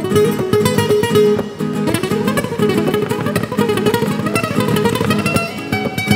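Two nylon-string flamenco guitars playing a fast plucked and strummed accompaniment, with a long wooden flute carrying a wavering melody over them.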